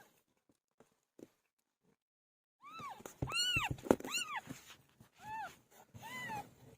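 Newborn kittens mewing: a run of about six short, high, thin calls, each rising then falling in pitch, bunched in the second half. A sharp knock about halfway through is the loudest sound.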